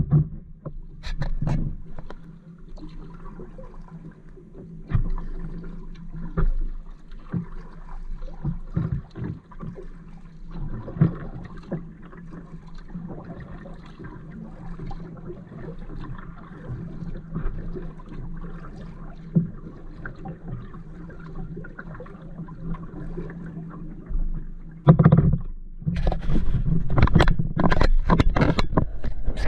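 Kayak paddling: paddle strokes and splashes in the water, with light knocks on the hull. Near the end the knocking and rubbing turn louder and more frequent.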